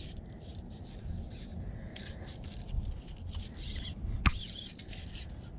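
Camera handling noise: scattered light rustles over a low steady rumble, with one sharp knock about four seconds in as a finger touches the camera lens.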